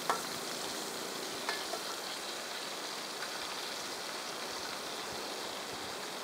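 Rainbow trout frying in olive oil in a pan on a small camp burner: a steady sizzle, with a few light taps of a utensil against the pan in the first two seconds.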